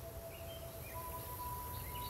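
Traditional flute music: one long held note fades out a little past halfway, overlapped by a higher note that comes in about halfway and is held. Birds chirp in the background.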